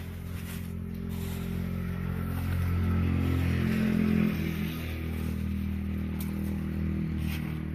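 A motor vehicle's engine running steadily, growing louder to a peak about four seconds in, then dropping a little in level and pitch as it passes.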